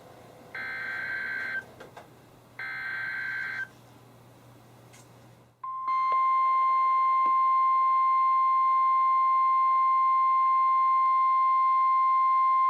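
NOAA Weather Radio emergency alert: two one-second bursts of the SAME digital header, a harsh electronic data sound, then after a short gap the steady 1050 Hz warning alarm tone starts about five and a half seconds in and holds. The sequence introduces a severe thunderstorm warning.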